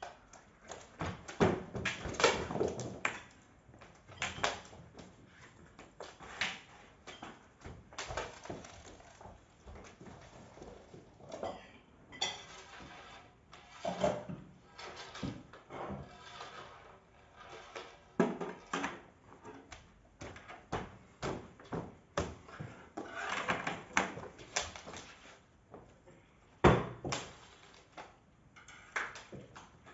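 Irregular knocks, thumps and clatter of a cat and a person playing on a wooden hallway floor, louder in clusters, with one sharp knock near the end and a short pitched sound a little before halfway.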